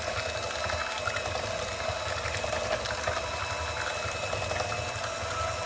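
Electric hand mixer running steadily, beating pie filling.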